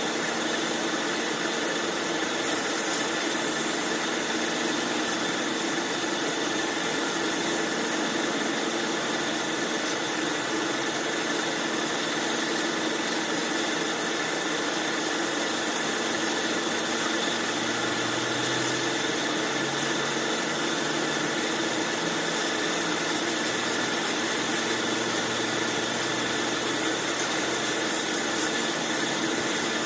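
Bandsaw machine running steadily, an even machine noise with a few constant tones that do not change.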